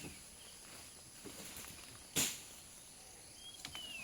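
Steady high insect buzzing, with one sharp knock or thud about two seconds in, the loudest sound here, and brief bird chirps near the end.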